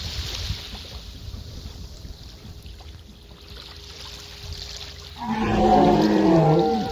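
Boat underway with a steady low motor hum and wind and water noise. About five seconds in comes a loud, drawn-out pitched sound whose pitch slides up and down and drops at the end, lasting under two seconds.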